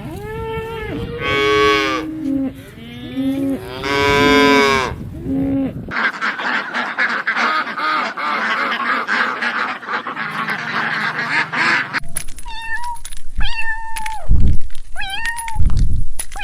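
Farm animals calling, in three back-to-back clips: first long, loud pitched calls that bend in pitch, then a dense stretch of overlapping noise, then a run of shorter, higher calls repeated every second or so.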